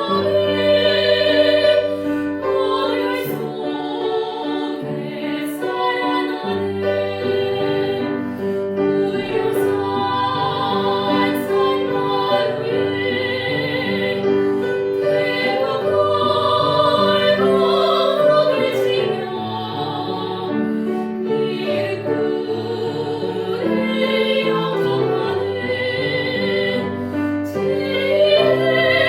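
A Korean Buddhist hymn (chanbulga) sung in a classical, operatic style with vibrato, accompanied by piano.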